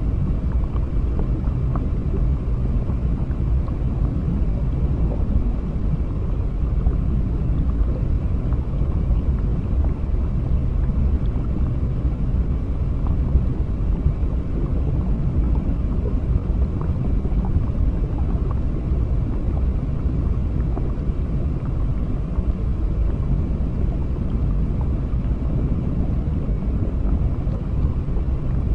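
Steady low underwater rumble of an aquarium ambience, with faint scattered ticks.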